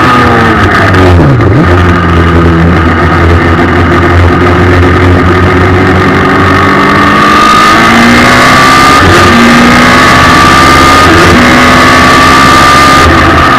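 Onboard sound of a race car's Suzuki Hayabusa 1300 inline-four motorcycle engine through an Akrapovič exhaust, driven hard: revs fall with downshifts under braking about a second in, then the engine climbs through the gears with a string of upshifts.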